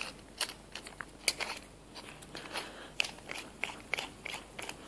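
Light, irregular clicks and small scrapes of metal parts being handled, as a threaded coupler is fitted and turned onto the punch's metal tube.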